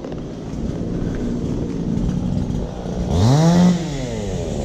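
Chainsaw running low, then revved up about three seconds in, held for a moment and dropping back. The saw is being used to cut up a fallen tree.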